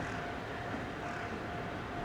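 Steady rumble of a locomotive-hauled train at the station, with a thin steady hum over it.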